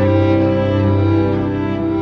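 Background music played on bowed strings: slow, sustained notes held over a low bass line, the chord changing about a second and a half in.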